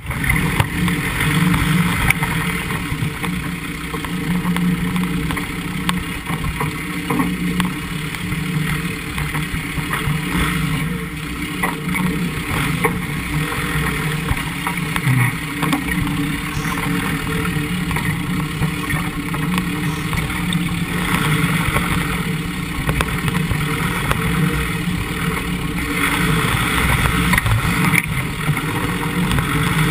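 Land Rover Defender 90's engine running steadily at low speed as it drives through shallow river water and out onto a stony riverbed, picked up by a GoPro mounted low on the body.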